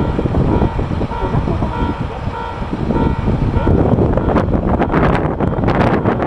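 Diesel local train arriving at a station, its rumble building about four seconds in, with wind buffeting the microphone throughout. A repeating beeping tone sounds during the first half.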